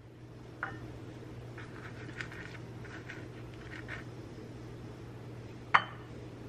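Green plastic avocado slicer scooping and slicing ripe avocado flesh out of its skin: a run of soft, short scrapes, then one sharp click near the end, over a steady low hum.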